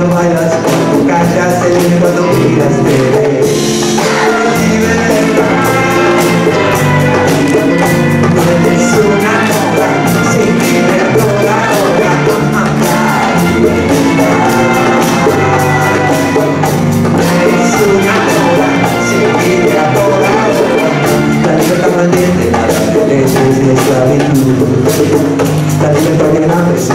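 A live band playing Latin music with a steady beat: hand drums and bongos over acoustic guitar, with cello and clarinet in the ensemble.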